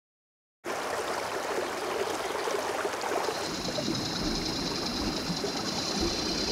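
Running stream water, a steady rushing and trickling that starts suddenly about half a second in. About three seconds in, a steady high whine joins it.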